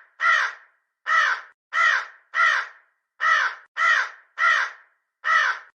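Crow cawing repeatedly: about nine short, harsh caws in quick succession.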